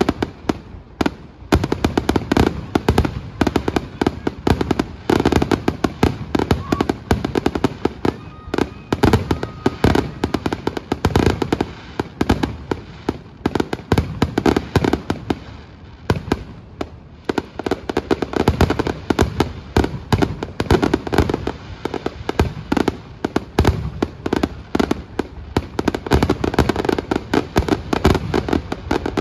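Aerial firework shells bursting in a dense, rapid barrage, the grand finale of a fireworks display. The bangs and crackles overlap almost without a break, thin out briefly a little past halfway, then pick up again.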